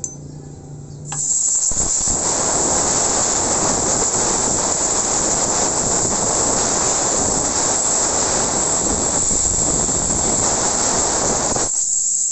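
Compressed-air blow gun blowing a long continuous blast of air into a motorcycle carburetor body, clearing out tapping chips and dirt from the air-screw port. A loud steady hiss that starts abruptly about a second in.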